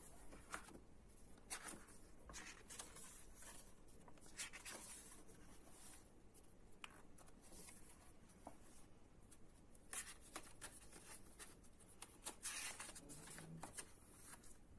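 Faint paper rustling and swishing as the pages of a hardcover book are turned and a fold-out page is opened out by hand: a scatter of short, soft rustles, the loudest about ten seconds in and again near the end.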